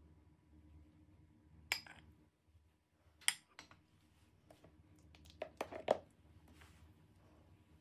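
A spatula knocking and scraping against a blender jar and a small glass cup while scooping out thick frozen-fruit soft serve. There is a sharp knock about two seconds in, two more around three and a half seconds, and a quick cluster of knocks and scrapes near six seconds, which is the loudest.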